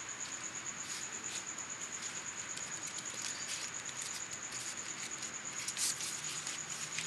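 A cricket trilling steadily, one high pulsing note, over a faint hiss, with a few soft clicks.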